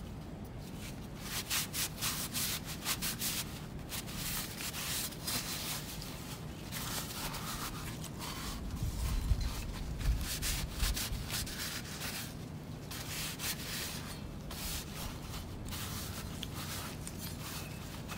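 Sandpaper rubbing by hand in irregular back-and-forth strokes, with a few low bumps about halfway through.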